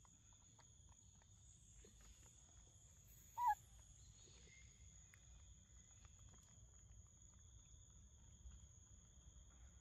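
Quiet forest ambience: a steady high drone of insects, with one short animal call about three and a half seconds in.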